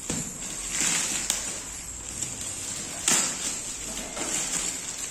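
Parcel packaging rustling and crinkling as it is pulled and torn open by hand, with louder bursts about a second in and again around three seconds in.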